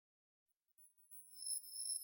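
Silence, then about three-quarters of a second in, very high-pitched chime-like tones fade in and build, several thin notes sounding together by the end.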